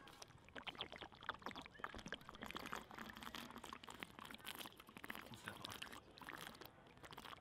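A person drinking steadily from a plastic squeeze bottle, with faint irregular gulps and the liquid glugging in the bottle.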